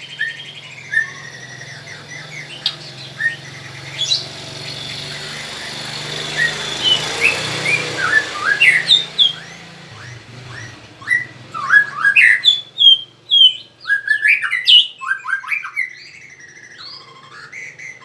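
A kept songbird calling with short chirps and whistled notes, sparse at first and then a fast, loud run of calls in the second half. A rushing noise swells and fades in the middle.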